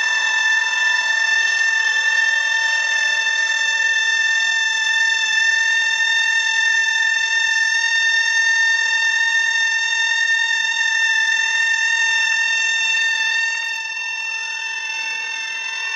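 A continuous high-pitched tone held at one steady pitch without a break, like an electronic alarm or beep tone. It drops a little in loudness near the end.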